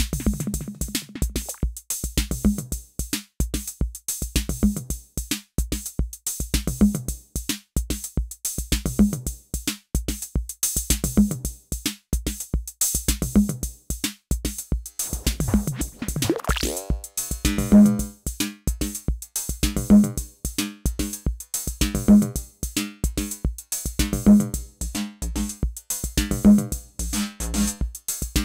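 Roland TR-06 Drumatix drum machine playing a looping pattern: a busy kick-and-hi-hat beat with a low pitched drum hit coming round about every two seconds. About fifteen seconds in, an effect sweep swells and bends down in pitch before the beat carries on.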